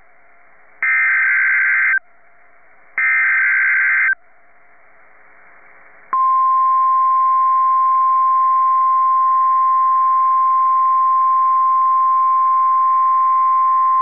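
NOAA Weather Radio EAS alert: two screeching SAME header data bursts of about a second each, encoding a tornado watch. About six seconds in comes the steady single-pitch 1050 Hz warning alarm tone, held to the end, with faint radio hiss between the bursts.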